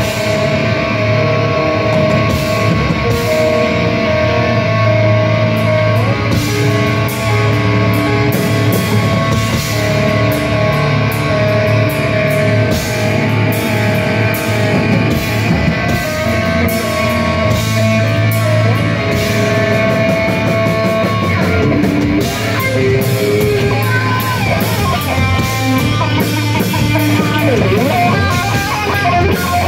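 A heavy rock band playing live and loud: distorted electric guitar, electric bass and a drum kit with steady cymbal hits. In the last several seconds the guitar plays bent, wavering notes.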